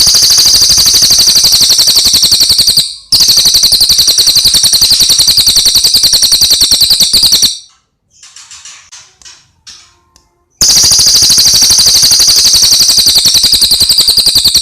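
A cililin bird singing a long, very fast, high-pitched trill of rapidly repeated notes, so loud that it sounds harsh. The song breaks off briefly about three seconds in, and again about halfway through, where a few softer, scattered notes come for about three seconds before the loud trill starts again.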